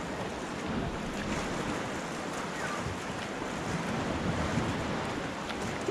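Steady wash of small sea waves against shoreline rocks, mixed with wind on the microphone.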